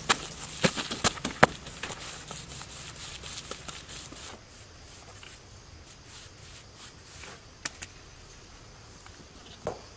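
A heavy stone slab knocked against a tiled floor, several sharp knocks in the first second and a half, then softer scraping of wet cement mortar spread by hand, with a couple of single clicks near the end.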